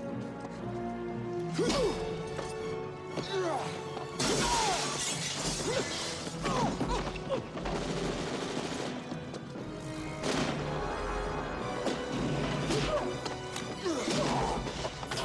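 Action-film soundtrack: dramatic music under repeated sudden crashes and breaking glass.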